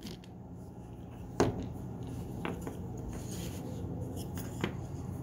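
Handling sounds of wooden cam clamp parts and a hand driver on a spoilboard: a few light, separate clicks and knocks, the sharpest about a second and a half in, over a faint steady low hum.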